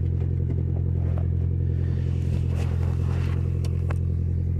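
Audi TT's 1.8-litre turbocharged four-cylinder engine idling steadily while warming up after a cold start.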